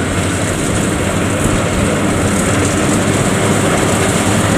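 FMWorld WD102 Pro rice combine harvester running under load while it cuts and threshes rice: a loud, steady engine hum mixed with the even noise of the harvesting machinery.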